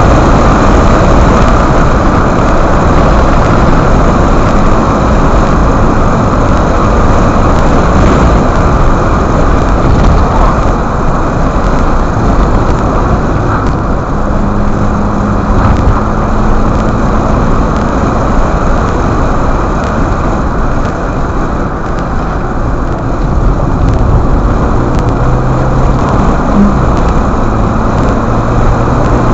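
Honda car driving, heard from inside the cabin: steady, loud road and engine noise, with a faint engine hum coming through in the second half.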